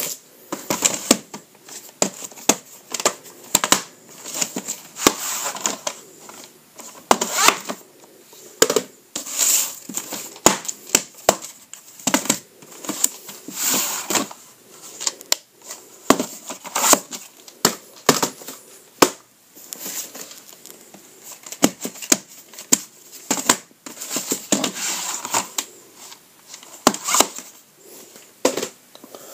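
VHS cassettes and their plastic clamshell cases being handled, opened and set down on a wooden floor: irregular clicks, knocks and rustling throughout.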